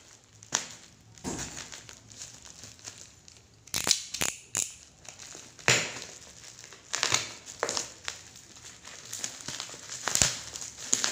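Shipping packaging being handled and torn open: irregular crinkling and crunching, with sharper cracks near the middle and near the end.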